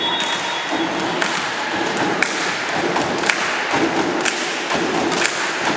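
Sharp beats about once a second in an even rhythm, over a murmur of voices in a large sports hall, as spectators beat out support during a volleyball match.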